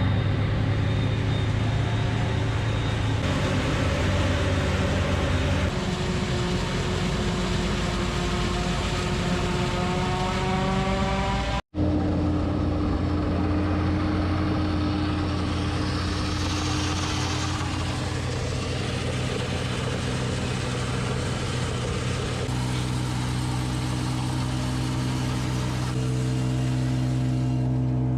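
Diesel tractor engine running steadily under load, its pitch drifting slowly up and down. The sound cuts out for an instant about twelve seconds in.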